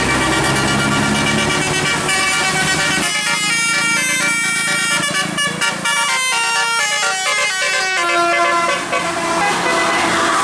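Bus telolet air horn, a Basuri multi-tone horn kit, playing a tune of quick stepped notes over the bus's running engine. The melody starts about three seconds in and runs until near the end.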